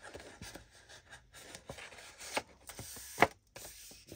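A bone folder and fingers rubbing along the folded score lines of a paper sheet, pressing the creases flat, with paper rustling and scraping. Short sharp taps break in, the loudest a little over three seconds in.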